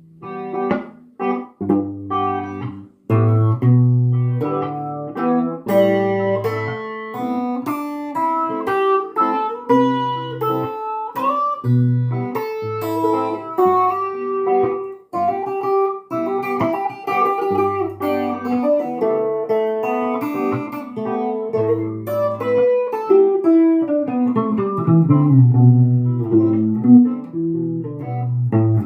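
Instrumental guitar passage: picked notes and runs over a low bass line, with a falling run of notes near the end.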